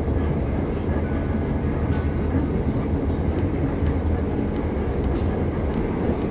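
A train running: a steady low rumble with a few short hisses.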